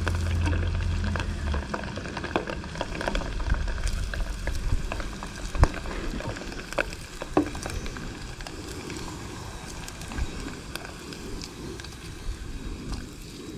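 Crumbed squid deep-frying in a small pot of hot oil, the oil sizzling and crackling steadily. A few sharper clicks around the middle come from metal tongs against the pot as the pieces are turned.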